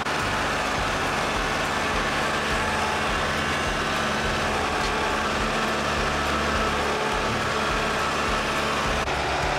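Kubota compact tractor's diesel engine running steadily while its front loader spears a round hay bale.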